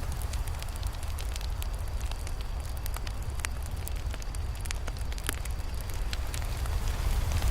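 Campfire burning: wood crackling with irregular sharp pops and snaps over a steady low rumble.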